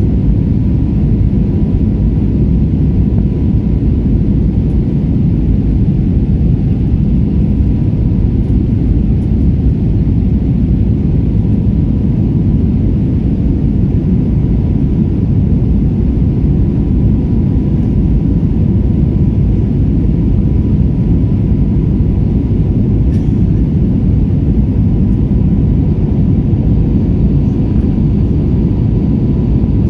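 Airbus A320neo cabin noise in flight: a loud, steady low rumble of engines and rushing air heard from inside the cabin, with a faint steady whine on top.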